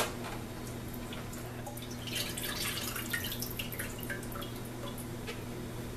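Turkey drippings poured from a bowl into a stainless skillet of broth, splashing and trickling, thickest about two to four seconds in. A sharp knock comes right at the start.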